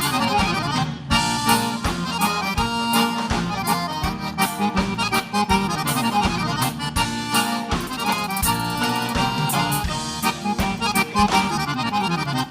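Instrumental break of live gaúcho dance music: piano accordion playing the melody over a steady beat, with no singing.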